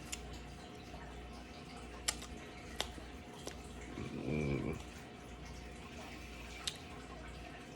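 A few faint, sharp clicks and a short low hum of a voice about halfway through, from a person tasting a seasoning, over a steady low room hum.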